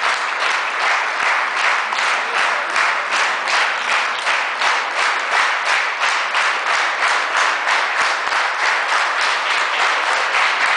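Audience applauding steadily, the clapping falling into an even rhythm after about three seconds.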